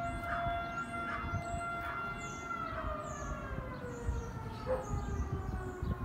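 Emergency siren holding a steady tone, whose pitch begins sliding slowly downward about two and a half seconds in.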